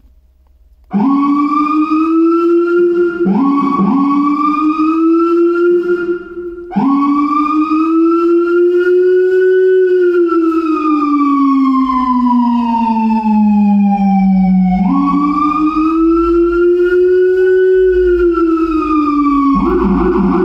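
Electronic police siren on a Feniex Typhoon controller sounding its wail, with a Federal Signal Rumbler adding a low copy of the tone. It starts about a second in, breaks off and restarts twice, then makes long slow rises and falls. Near the end it switches to a fast warble.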